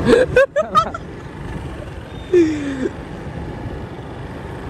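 Steady running noise of a moving scooter, with a voice briefly at the start and one short falling cry about halfway through.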